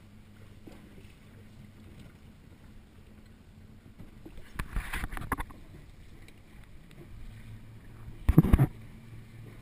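A boat's engine idling with a faint low steady hum under wind and water noise, with a brief louder rush about five seconds in. Near the end, a cluster of loud bumps as a hand grabs the camera.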